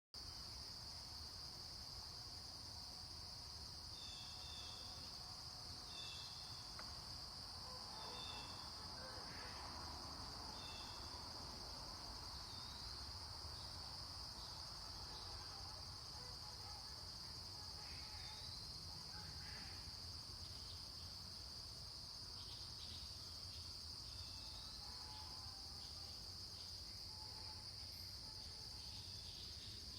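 Morning birdsong: birds give short repeated chirps about every two seconds in the first half, then scattered upswept calls and a few lower chirps, over a continuous high-pitched whine.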